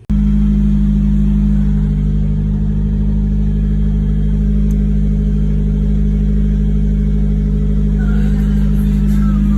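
Nissan Sunny B13's engine running steadily at an even speed, freshly brought back to life after restoration work on its starter and wiring.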